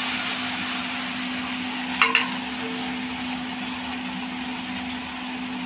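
Rice-flour and grated-cucumber batter sizzling steadily on a hot, oiled cast-iron tava as it is poured and spread, with one brief sharper sound about two seconds in.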